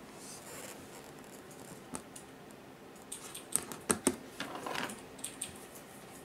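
Light clicks and taps on a hardwood floor as ragdoll kittens scramble and bat at a hanging Christmas ornament. A quick cluster of sharper taps comes about four seconds in.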